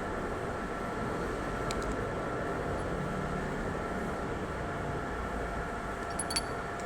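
Milling machine running with a steady hum and a faint, high, constant whine, plus a few light clicks near the end.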